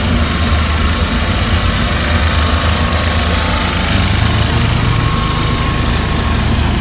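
Small engine of a single-axle two-wheel tractor running steadily as it drives past pulling a trailer, a continuous low rumble.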